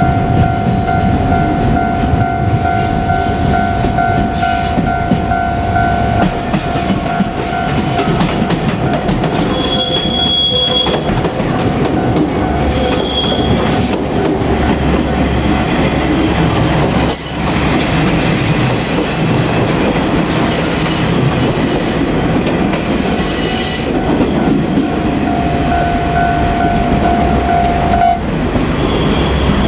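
JR Kyushu trains passing over a level crossing: wheels clatter over the rails with short, high wheel squeals. A steady warning tone, the crossing alarm, sounds near the start and again near the end.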